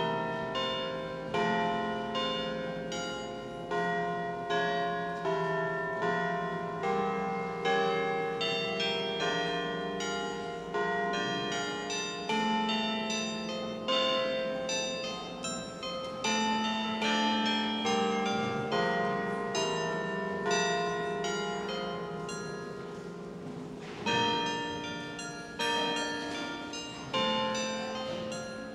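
Bells playing a tune: struck notes at about one to two a second, each ringing on and overlapping the next, with a short lull a few seconds before the end.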